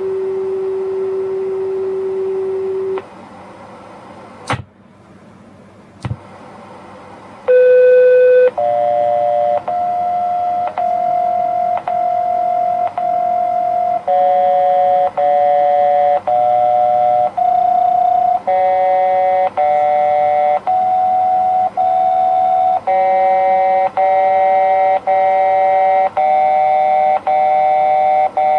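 Electronic signal tones from a municipal disaster-prevention wireless broadcast: one steady tone for about three seconds, two sharp clicks, then from about seven seconds in a string of electronic chime notes, about one a second, each sounding several pitches at once and changing from note to note.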